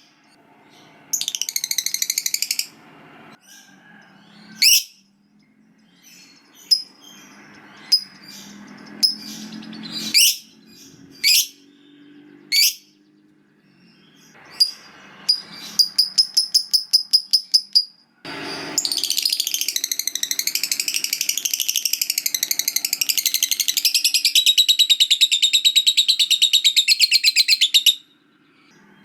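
Lovebird calling: sharp, high rising chirps, then a quick run of repeated notes, then a long rapid chattering trill of about nine seconds, the long 'ngekek' that fanciers prize.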